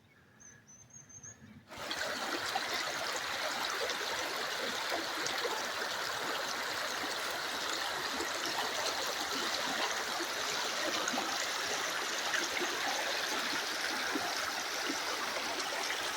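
Small mountain creek running steadily, setting in suddenly about two seconds in after a near-quiet start.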